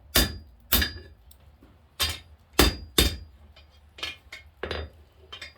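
Hand hammer striking a hot steel bar on the anvil horn, single blows with short pauses, each with a brief metallic ring. The blows are bending the eye of a forged poker handle back toward centre, and they get lighter in the second half.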